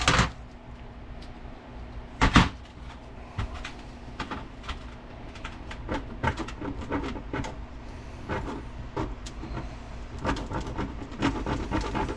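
Metal clinks and knocks of hand tools on an NP205 transfer case while a shift-rail detent bolt is backed out, with one sharper knock about two seconds in and a run of small ticks later on.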